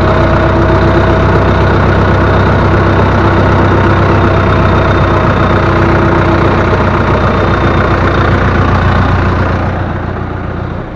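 Loader's diesel engine running steadily, with its freshly refastened hydraulic pumps, a slight vibration that is normal. It becomes quieter near the end.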